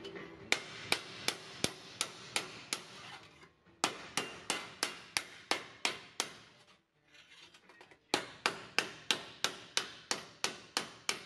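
Plastic mallet striking sheet metal held over a T-stake anvil, a steady run of about three sharp blows a second, broken by two short pauses, as the top edge of a car fender is rounded over.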